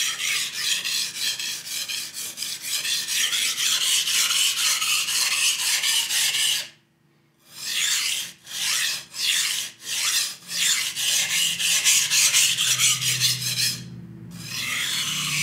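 Steel knife blade being sharpened on a soaked whetstone: repeated rasping strokes of the edge across the stone. They break off for a moment about halfway through and briefly again near the end.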